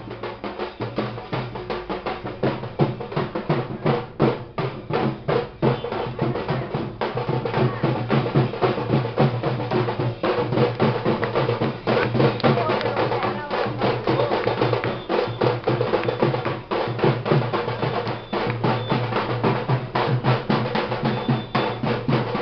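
Loud, fast live drumming for dancing, a dense continuous beat of many strokes a second.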